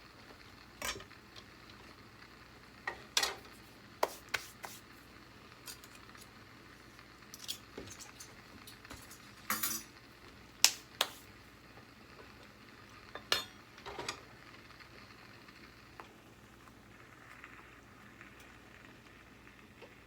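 Kitchen clean-up clatter: utensils and dishes clinking and knocking against each other and the counter in scattered sharp clatters, busiest in the first two-thirds and then dying away.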